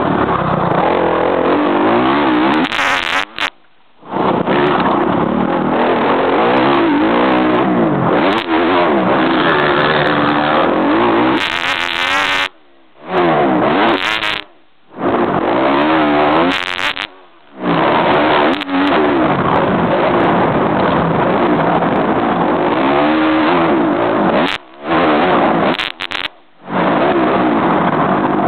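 Off-road motorcycle engine heard from an onboard camera, revving up and falling back again and again as it is ridden hard over a dirt track. The sound drops out briefly several times.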